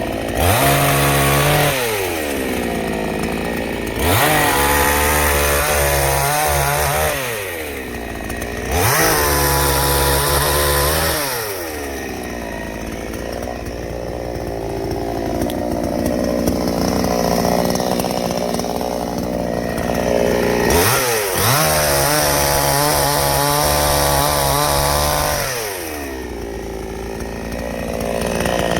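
Chainsaw engine revving up to full speed and dropping back, over and over, as it cuts wood; about five high-revving stretches of two to five seconds each, with a longer, less even stretch in the middle.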